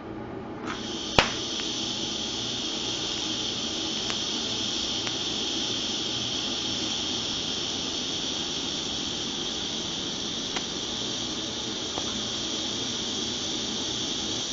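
TIG welding arc on a steel motorcycle frame: the arc strikes under a second in with a sharp crack, then burns with a steady, bright hiss while a bead is laid with filler rod.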